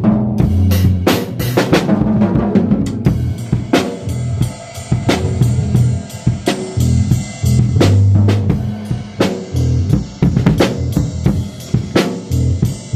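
Music led by a drum kit, with bass drum and snare keeping a steady beat over a moving bass line.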